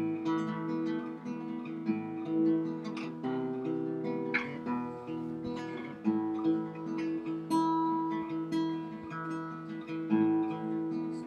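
Background music: acoustic guitar playing, plucked and strummed chords.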